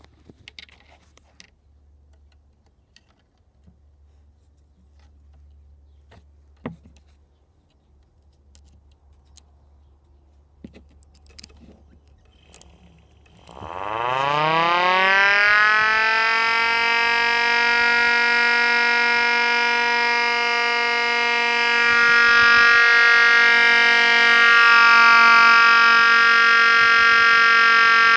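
Faint clicks over a low hum, then about halfway through a 3D-printed tornado siren spins up: its wail rises quickly in pitch, then holds one steady tone, getting a little louder near the end.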